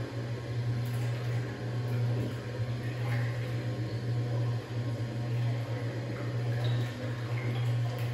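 Bulk milk tank's agitator running, a steady low motor hum over the churn of milk being stirred in the stainless steel tank.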